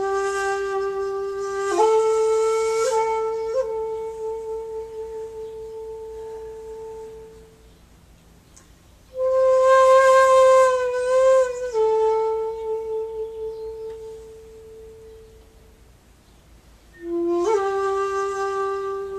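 Shakuhachi, a Japanese bamboo end-blown flute, played solo in slow phrases. Three long held notes each begin with a breathy attack and a few quick ornamental flicks of pitch, then fade away, with brief pauses between them.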